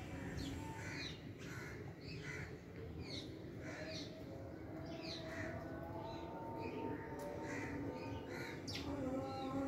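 Birds calling outdoors: short, slightly falling calls repeated about twice a second over steady background noise.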